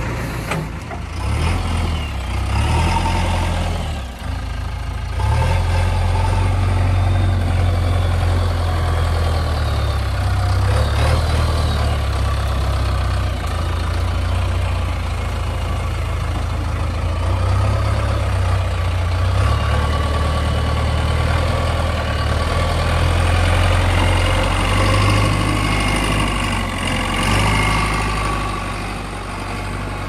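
JCB backhoe loader's diesel engine running steadily with a deep rumble, dipping briefly about four seconds in. A thin higher whine comes and goes in the second half.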